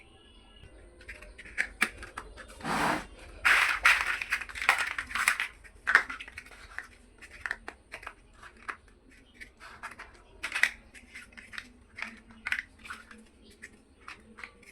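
Small plastic building bricks clicking and clattering as they are handled and pressed together, in scattered sharp clicks. A denser run of clatter and rustling comes about four seconds in.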